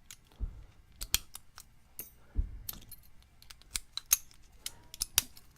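Old Master Lock padlocks and a steel pick clinking as they are handled and set down: a string of irregular, sharp metallic clicks and clinks.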